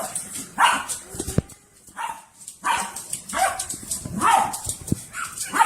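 A dog barking repeatedly: about eight short barks with brief gaps between them.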